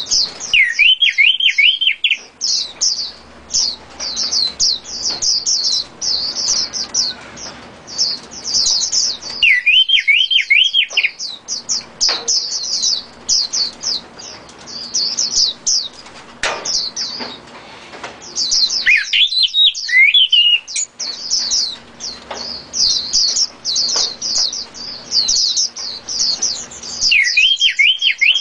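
Caged songbirds chirping: a dense run of fast, high twittering chirps, broken about every nine seconds by a lower, looping warbled phrase of a second or two.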